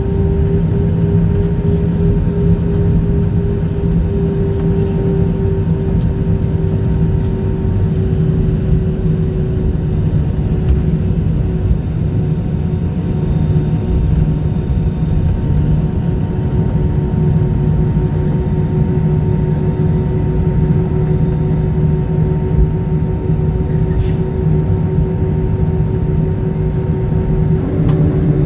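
Jet engines and airflow heard from inside the cabin of an Airbus A320-family airliner slowing and taxiing after landing: a steady loud drone with a low hum and a constant whining tone.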